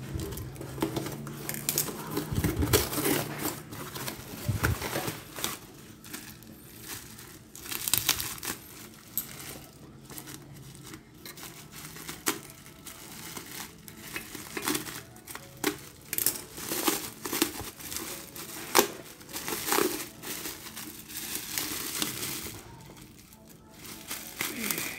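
Black bubble wrap and a cardboard parcel being cut open with scissors and pulled apart by hand: irregular crinkling and rustling with occasional snips and tears.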